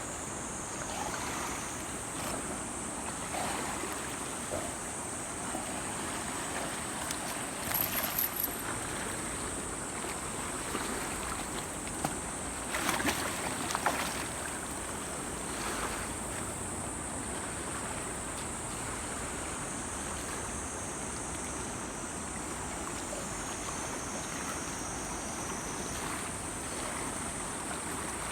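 Steady rush of water from a river swollen after a typhoon, with a few brief louder bursts about eight seconds and thirteen to fourteen seconds in.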